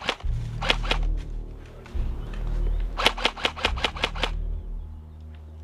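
Airsoft rifle firing: a short group of about three sharp shots just under a second in, then a burst of about seven shots, about six a second, around three seconds in.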